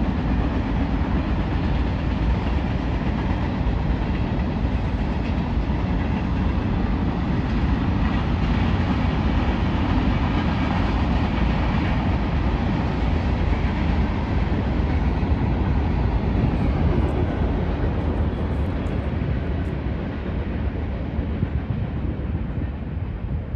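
Freight train's tank cars and covered hoppers rolling past, a steady rumble of wheels on rail that fades near the end as the last cars go by.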